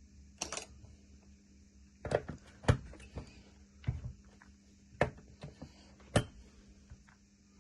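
Sharp plastic-and-metal clicks of blade fuses being pulled one by one from a Ford body control module fuse box with pliers: about six separate clicks, the loudest near the middle.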